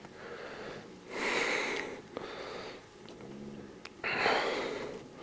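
Heavy, labored breathing close to the microphone: two loud breaths, about a second in and again about four seconds in, with a brief low hum between them. It is the panting of someone tired from climbing steeply uphill on foot.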